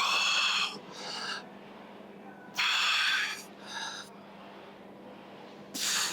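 A man breathing hard from lifting exertion. There are three loud, forceful breaths out, about three seconds apart, each followed by a shorter, quieter breath in.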